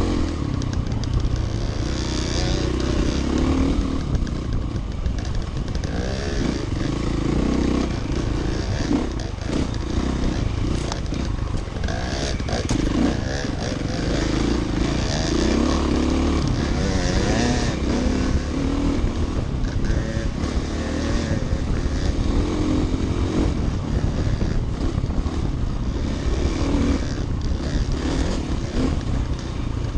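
Off-road dirt bike engine running on a rough trail ride, heard from on the bike, its pitch rising and falling with the throttle. Frequent knocks and rattles come from the bike riding over the bumpy ground.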